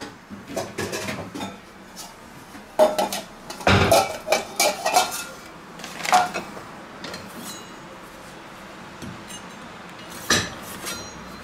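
Stainless steel bowls clattering and clinking as they are handled and set down on the counter: a run of sharp metallic knocks, some with a short ring, over the first six seconds, and one more knock a little after ten seconds.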